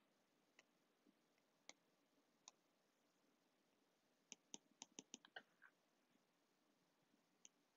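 Faint clicks of a stylus tip tapping on a tablet's glass screen during handwriting: a few single taps, then a quick run of about eight taps around four to six seconds in, and one more near the end.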